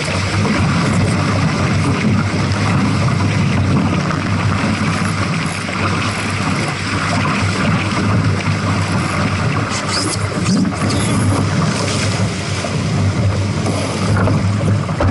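Wind buffeting the microphone and water rushing and spraying along the hull of a Phantom sailing dinghy moving fast in gusty wind. Near the end there is a louder rush and splash as the dinghy capsizes to windward and water sweeps over the side.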